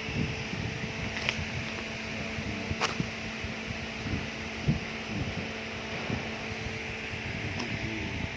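CNC oxy-fuel cutting torch hissing steadily as it cuts steel plate, over a constant machine hum, with a couple of faint clicks.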